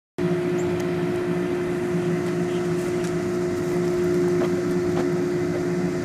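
A machine running steadily: an even hum holding one pitch, over a lower rumble that swells and fades every second or so.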